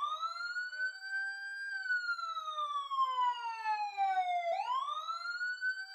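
Police siren wailing: its pitch rises, holds briefly, falls slowly over about three seconds, and starts rising again near the end.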